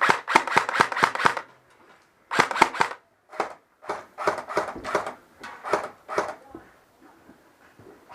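Airsoft guns firing in quick strings of sharp shots, about five a second, broken by short pauses: a burst of half a dozen, a pair, a single shot, then a longer run of about ten.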